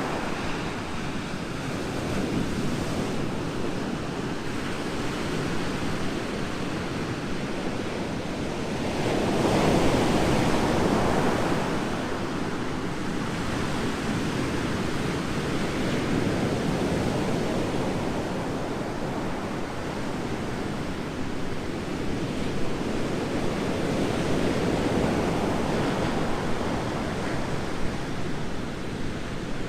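Ocean waves breaking on a beach: a steady wash of surf, with a bigger wave swelling louder about nine seconds in and easing off a few seconds later, and another gentler swell near the end.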